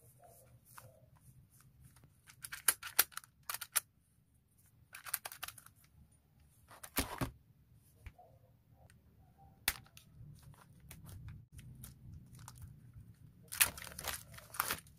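Lock parts and their packaging being handled: scattered clicks and knocks with short bursts of rustling, the busiest stretch near the end.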